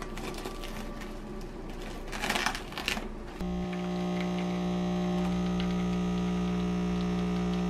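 A spoon scrapes burnt crust off a toasted bread roll in a few rasping strokes. About three and a half seconds in, a capsule coffee machine's pump starts with a steady, louder hum as coffee pours into a mug of milk.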